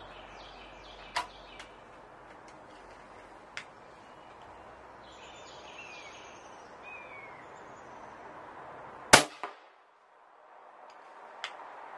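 A single sharp shot from a .357 caliber big bore air rifle about nine seconds in, the loudest sound, followed a moment later by a smaller crack. Before it, small birds chirp over a steady outdoor hiss, with a few faint clicks.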